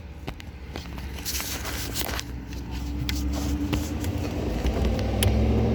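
Light clicks and scrapes of a plastic bulb socket and wiring being worked loose by hand inside a car's brake-light housing, over a low rumble that grows louder about halfway through.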